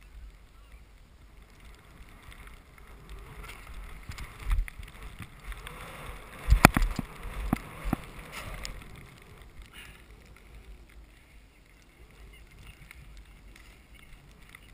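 Skis running through deep powder snow: a rushing hiss with a low rumble of wind on the microphone. It builds through the middle, where a few sharp thumps come, the loudest about six and a half seconds in.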